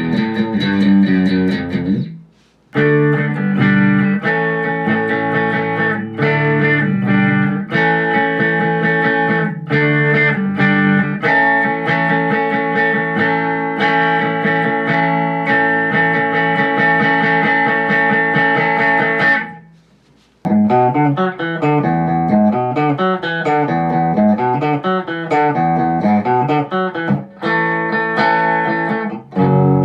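Electric guitar played through presets of an M-VAVE MK-300 multi-effects unit: held notes and chords, then a run of quicker picked notes. The playing stops briefly twice, about two seconds in and again about two-thirds through.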